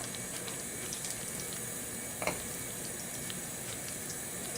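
Steady hiss of pots of water with vegetables heating toward the boil on the stove, with a light click of a metal spoon against a pot about two seconds in.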